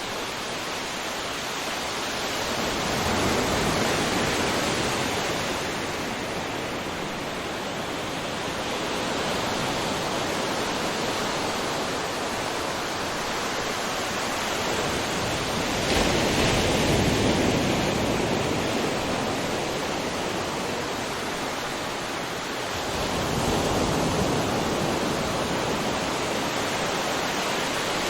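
Ocean waves crashing on the shore: a steady rush of surf that swells about three times, each wave breaking then washing back, the sharpest and loudest break about halfway through.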